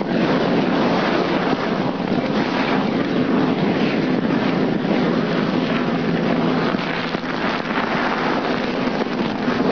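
Charcoal briquettes burning fiercely under poured liquid oxygen: a steady, loud rushing noise of intense combustion that holds without a break.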